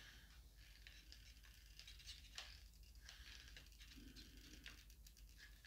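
Near silence, with faint scattered ticks and light rustling from hot glue being applied with a glue gun to a small fan.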